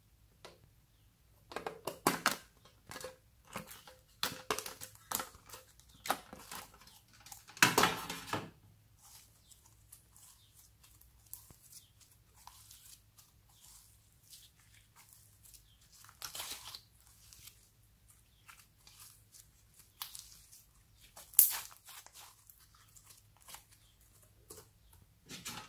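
Slime being squeezed and stretched by hand: irregular sticky crackles, clicks and small pops, in dense clusters early on, then sparser, with one sharp loud crackle about three quarters through.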